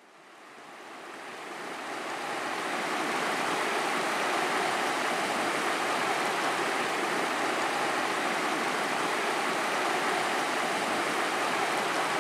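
Shallow, stony river rushing over rocks: a steady rush of water that fades up from silence over the first two seconds or so, then holds level.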